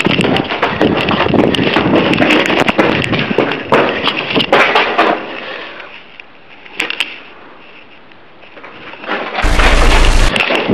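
Harsh, crackling noise with scattered sharp clicks, like rough handheld-camera audio, fading down about six seconds in and ending in a short blast of loud static about nine and a half seconds in.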